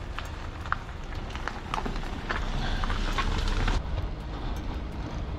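Wind rumbling on the microphone with irregular clicks and knocks from a mud-caked gravel bike moving over rough, muddy ground. A louder hiss builds in the middle and cuts off suddenly just before the end.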